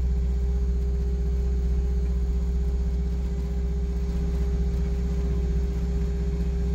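Bobcat skid-steer loader's engine running steadily, heard from the operator's cab: a low, even rumble with a constant hum above it.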